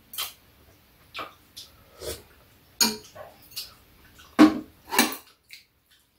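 Eating at a table: a string of short clicks and clinks of metal spoon and chopsticks on bowls and a steel plate, mixed with chewing and slurping. The two loudest sounds come about four and a half and five seconds in.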